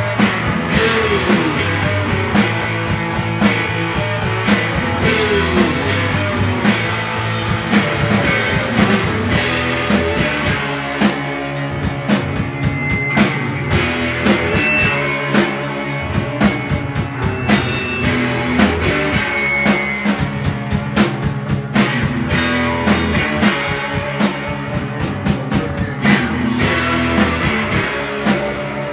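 Indie rock band playing live: electric guitar over a busy drum kit, with a couple of sliding guitar notes in the first few seconds.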